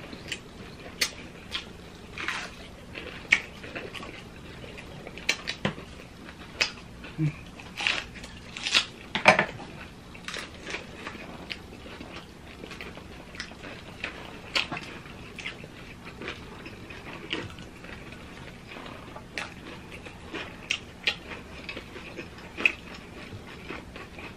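Close-miked chewing and crunching of fried breaded pork cutlet, in irregular short bursts with scattered sharp clicks.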